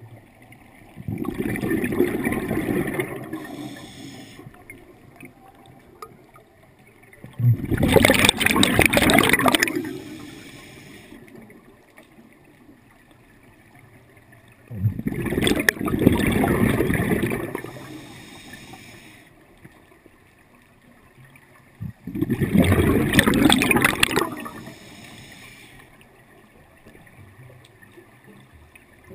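Scuba diver breathing underwater through a regulator: four long rushes of exhaled bubbles, each two to three seconds long and about seven seconds apart, in a slow, even breathing rhythm.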